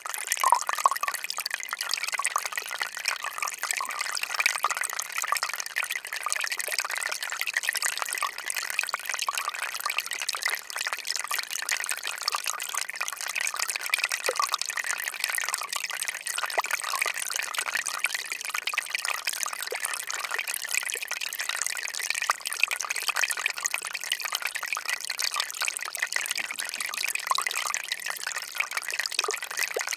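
Melting ice giving off a dense, steady crackle of countless tiny clicks, with water dripping and trickling.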